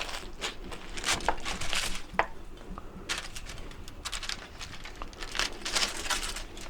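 Aluminium foil crinkling and rustling in irregular bursts as it is handled, opening a foil-wrapped patty melt.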